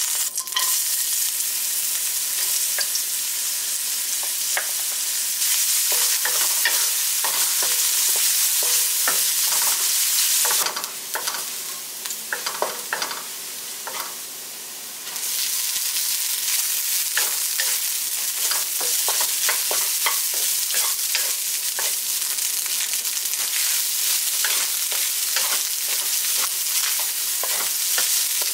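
Food frying in hot oil in a wok, with a steady sizzle, while a wooden spatula stirs it and scrapes and taps against the pan. The sizzle drops lower for a few seconds in the middle, then comes back.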